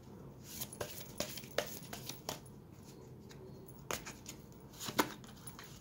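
A deck of tarot cards being handled and shuffled in the hands: soft, irregular clicks and flicks of card on card, with a couple of louder snaps in the second half.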